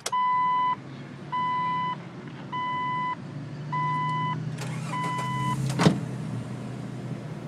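A Jeep's dashboard warning chime beeps five times at about one a second while the starter cranks, and the engine catches with a sharp clunk about six seconds in and settles into a steady idle. The start shows the hidden starter-interlock switch is turned on.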